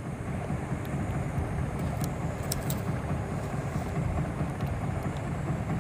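Steady low outdoor rumble with a few faint clicks about two to two and a half seconds in.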